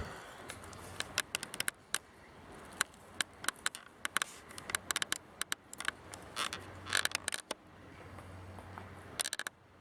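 Footsteps crunching on dry leaves and twigs: irregular light crackles and clicks, in clusters.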